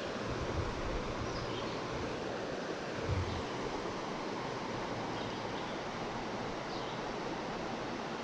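Steady rush of flowing river water, an even hiss without distinct events.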